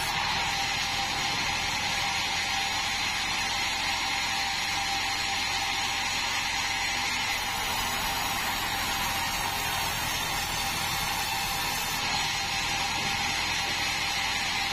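Band sawmill running with a steady mechanical whir and hiss, unchanged throughout.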